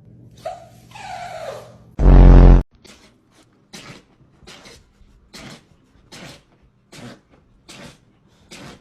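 An animal's two short whining calls falling in pitch, then a very loud blaring blast of about half a second. A run of soft short puffs follows, about one every two-thirds of a second, and the same loud blast comes again at the very end.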